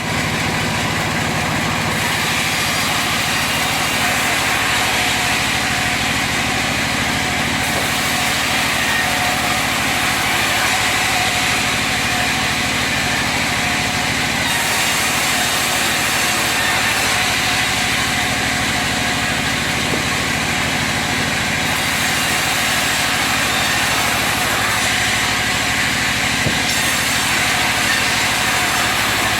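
Sawmill log-sawing machine running steadily, its motor's even hum under a broad, steady noise.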